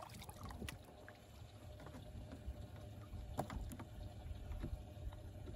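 Water lapping at the side of a fishing boat, with a few light knocks and clicks from handling a catfish jug line at the gunwale, the loudest about three and a half seconds in.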